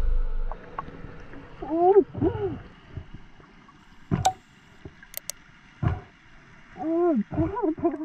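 Muffled vocal sounds from a snorkeler underwater, short pitched exclamations that rise and fall, two about two seconds in and three more near the end, with a few sharp clicks between them.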